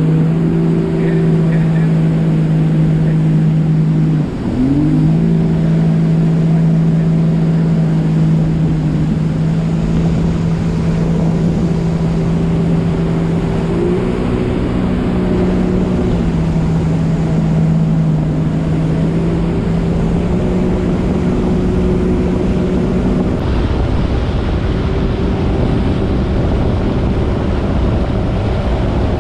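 Jet ski engine running at a steady cruising speed, with a brief let-off of the throttle about four seconds in: the pitch drops and quickly climbs back. Later the engine speed shifts slightly up and down a few times.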